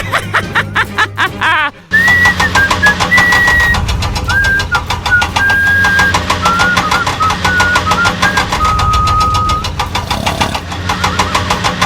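A small engine running steadily with rapid, even firing, with a simple stepped tune playing over it from about two seconds in.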